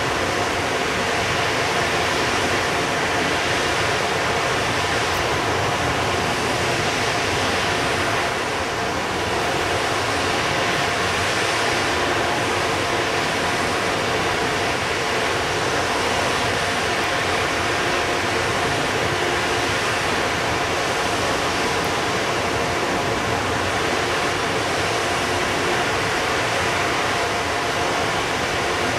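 Steady, even rushing noise with a faint hum in it, from the cooling blowers of an EH200 electric locomotive standing still with its train.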